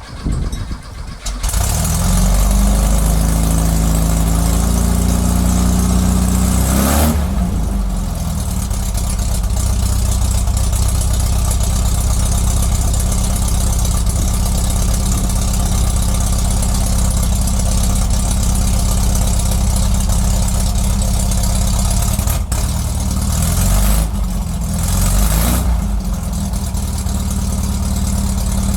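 Air-cooled flat-four engine of a 1969 Volkswagen Karmann Ghia being cranked, then catching about a second and a half in on its first start after a carburetor rebuild. It revs up for a few seconds and then settles into a steady idle, with a short rise in revs near the end.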